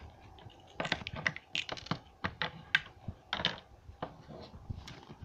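Irregular light taps and clicks of small plastic toy figures being handled and set down on a tabletop, several a second and busiest in the first three and a half seconds, thinning out near the end.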